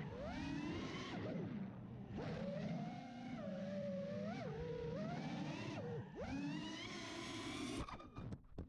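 FPV quadcopter's brushless motors and propellers whining, the pitch sliding up and down with the throttle. The whine cuts off near the end, followed by a few sharp clicks.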